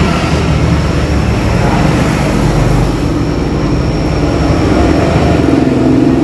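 Steady, loud rumble of a motor vehicle's engine running close by, with the noise of road traffic.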